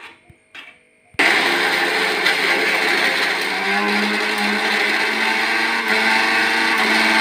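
Electric mixer grinder (mixie) switched on about a second in and running steadily at full speed, chopping a dry chutney mix of flowers, grated coconut, chillies and garlic in its steel jar before any water is added.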